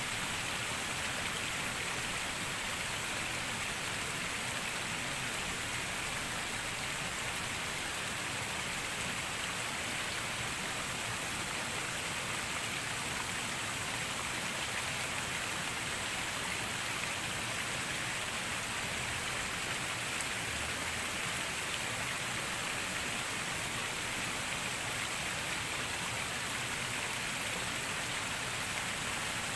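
Steady rain falling, an even unbroken hiss with no single drops or other sounds standing out.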